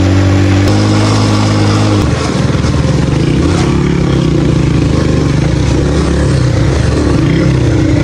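Small, low-powered motorcycle engine running while ridden over a rough dirt track; the steady engine note changes pitch in steps, then turns rougher and rapidly pulsing about two seconds in.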